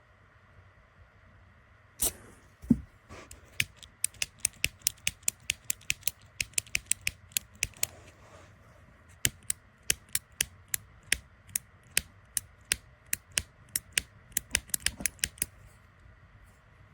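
Piezo igniter of a Zippo double-torch butane lighter insert clicked over and over, sharp single clicks at about three or four a second with a few short pauses, after a couple of knocks about two seconds in.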